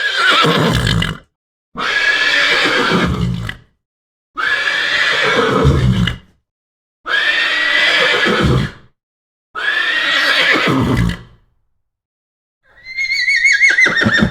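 Horse whinnying: six separate whinnies of about two seconds each, with dead silence between them. Each call starts high and slides down in pitch toward a low end; the last, near the end, is higher with a quavering pitch.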